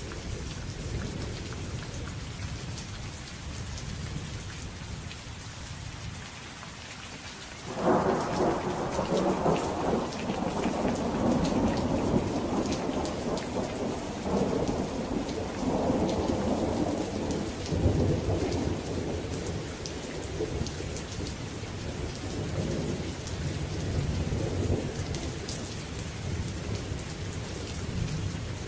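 Steady rain falling, with a thunderclap breaking out suddenly about a quarter of the way in, then rolling on in waves of rumbling that slowly fade.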